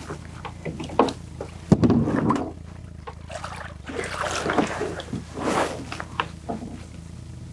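Water splashing and sloshing in irregular bursts as a small smallmouth bass is landed in a net at the side of an aluminium boat, with a sharp knock just before the loudest splash, less than two seconds in. A steady low hum runs underneath.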